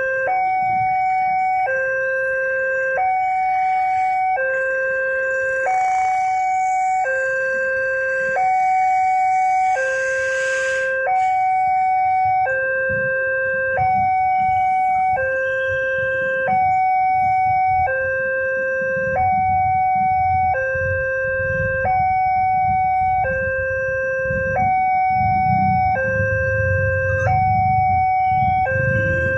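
Electronic two-tone warning alarm of a railway level crossing, sounding from the loudspeaker on the signal post. It alternates evenly between a low and a high tone, a little under once a second, and signals that a train is approaching with the barrier closed. A low engine rumble grows underneath in the second half.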